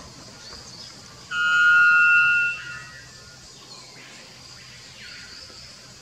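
White bellbird (Procnias albus) giving one loud, clear-toned call about a second in, held for a little over a second, with a shorter, fainter second note right after it.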